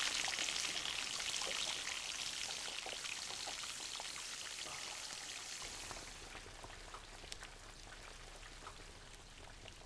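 Hot oil in a deep-fat fryer sizzling hard around something dunked into it, a dense hiss with scattered crackles that slowly dies down.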